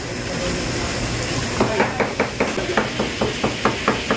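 Cleaver chopping raw meat on a plastic cutting board: a quick, even run of strokes, about five a second, starting about one and a half seconds in, over a steady rush of kitchen ventilation.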